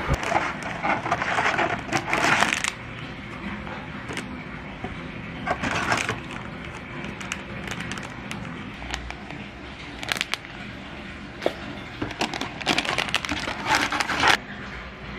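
Household handling noises: a stretch of rustling and scraping at the start, scattered clicks and knocks in the middle, and another run of rustling and scraping near the end.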